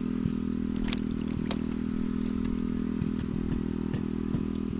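A small engine running steadily at an even speed, with a few short clicks or knocks over it.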